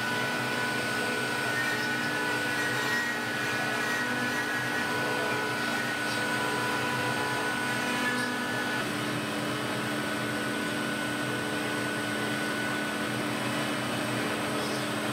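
CNC router spindle running at about 12,000 rpm while a tapered carving bit cuts a relief into wood: a steady machine whine over the noise of the cut.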